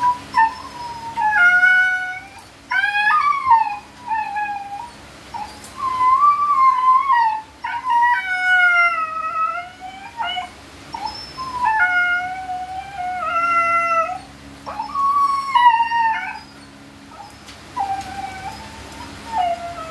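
Siberian husky crying repeatedly while mating: about a dozen high, wavering whine-howls, each half a second to two seconds long, sliding up and down in pitch with short breaks between them.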